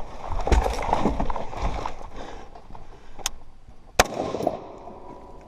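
Running footsteps thudding for about two seconds and fading as the runner stops. A sharp click a little after three seconds in, then a single loud rifle shot about four seconds in.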